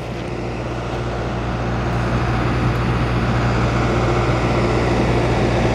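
Steady machine hum with a constant low drone under a rushing noise, growing slightly louder.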